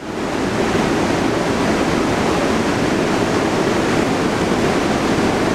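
Steady, loud rushing roar of a New York City Subway train running through the station.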